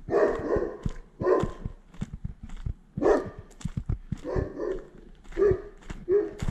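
A dog barking repeatedly, about six barks roughly a second apart, over footsteps on a gravel lane.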